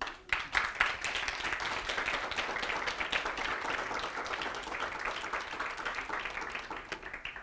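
Audience applauding: many people clapping, starting at once and dying away near the end.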